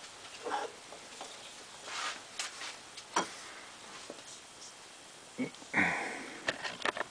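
Scattered light clicks, taps and rustles of things being handled at a workbench, with a louder scraping rustle about six seconds in followed by a quick run of sharp clicks.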